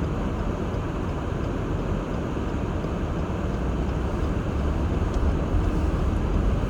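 Car driving on an uncleared, snow-covered road, heard from inside the cabin: a steady low rumble of engine and tyre noise that grows a little louder toward the end.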